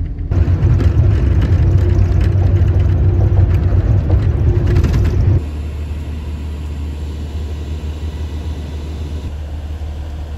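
Loud low rumble of a moving vehicle heard from inside the cabin. About halfway through it cuts to a quieter, steady low engine hum inside a shuttle bus in slow traffic.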